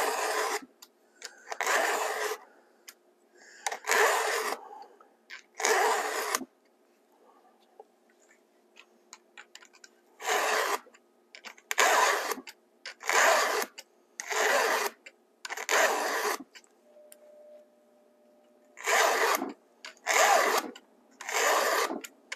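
Chainsaw chain being hand-filed with a Stihl 2-in-1 filing guide: rasping push strokes of the file across the cutters, each under a second long and about one every 1.3 to 2 seconds. They come in runs of four or five with short pauses as the guide moves to the next cutter, and the file is pushed one way only, not sawed back and forth.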